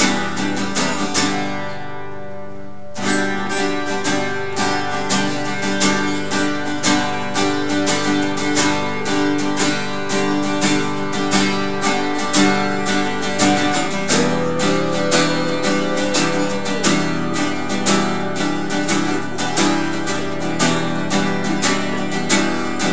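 Instrumental break of a song: acoustic guitar strumming a steady rhythm. About a second in, one chord is left to ring for a couple of seconds before the strumming resumes, and past the middle a held higher note sounds over it for a few seconds.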